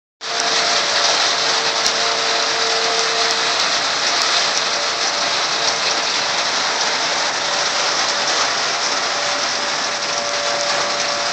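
Heavy rain falling steadily during a thunderstorm.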